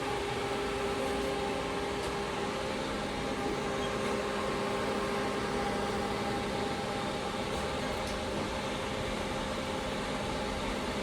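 Haas HL-6 CNC lathe running, a steady mechanical whir with several held hums.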